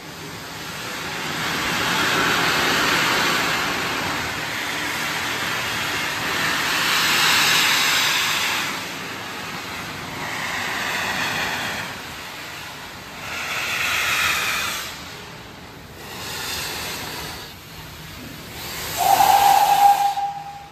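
Steam locomotive venting steam in a series of loud hissing swells, each about two seconds long. Near the end comes one short steam-whistle blast, the loudest sound.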